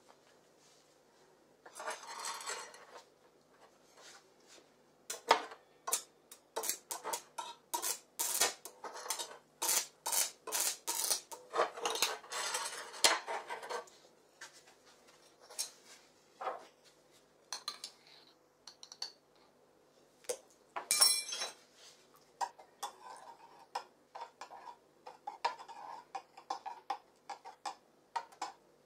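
Metal spoon clinking and scraping against a salt jar and a metal bucket as salt is spooned and stirred into the water: a busy run of clinks, a loud clank about two-thirds through, then quicker evenly spaced clinks of stirring near the end.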